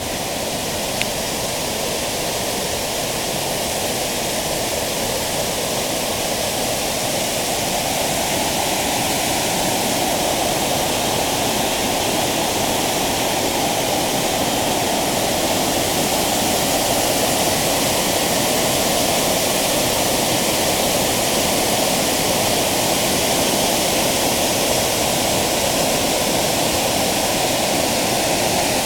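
Waterfall: a steady, loud rush of falling water, growing a little louder over the first several seconds.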